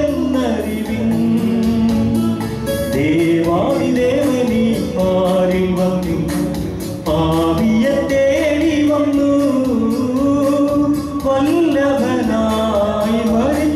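A man singing a gospel hymn into a microphone, amplified through a PA loudspeaker, over a steady beat.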